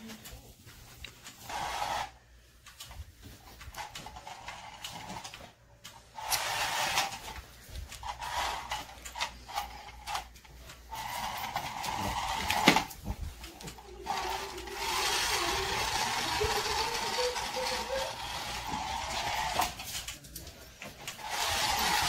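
A remote-control toy bunny's small motor whirring in spells that start and stop, the longest about two-thirds of the way through, with one sharp knock near the middle.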